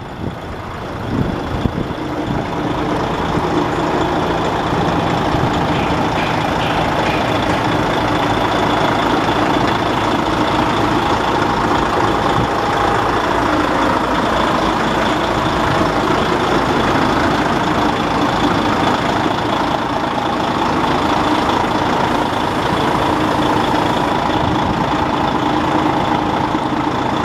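DAF XF105.510 tractor unit's 12.9-litre PACCAR MX six-cylinder diesel idling steadily.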